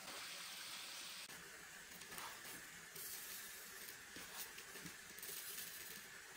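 Faint, steady hiss of running stream water, with a few light clicks.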